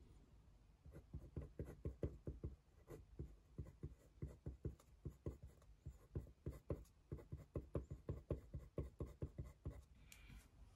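Faint handwriting on a small slip of paper lying on a hard desk: quick scratching strokes and taps of the writing tip, several a second.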